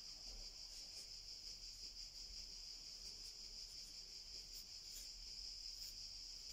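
Faint steady high-pitched whine in the background, with a few faint scratches from a felt-tip marker writing on a paper label.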